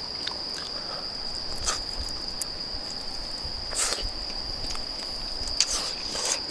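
A steady chorus of night insects holding one high, unbroken trill, with a few short clicks and crunches on top, the loudest about four seconds in.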